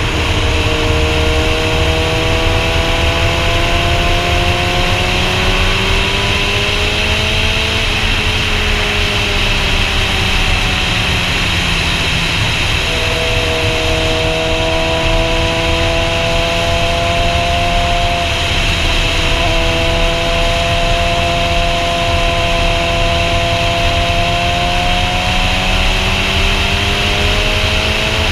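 Sportbike's inline-four engine running at road speed, with heavy wind rush over the microphone. The engine note climbs gradually for the first several seconds and drops back around eight seconds in. It then holds nearly steady and rises slightly again near the end.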